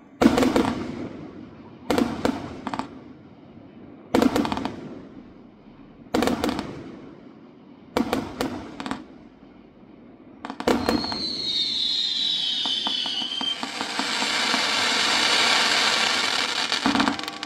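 Castillo fireworks going off: a string of sharp bangs about two seconds apart, each ringing away. About ten seconds in they give way to a long hissing rush with a falling whistle, which lasts until near the end.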